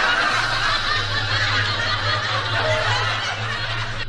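Several people laughing and snickering together over a steady low hum.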